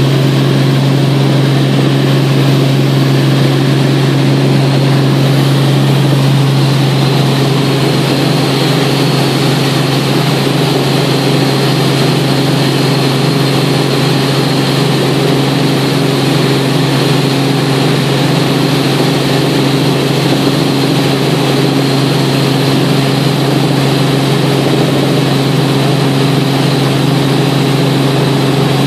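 Helicopter engine and rotor noise heard from inside the cabin in steady cruise: a loud, unchanging low hum with a faint high whine above it.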